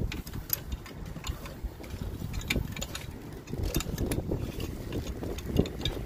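Scattered small clicks and taps of hands handling a fire-alarm tamper switch and its metal mounting hardware, over a low, uneven rumble.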